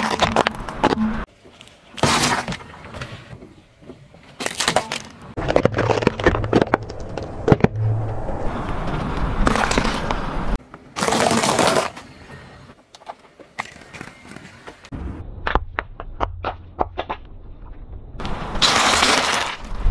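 A car tyre rolling over things and crushing them, clip after clip: carrots and other crunchy items giving runs of sharp cracks and crunches, with abrupt cuts between the clips and a low rumble under some of them.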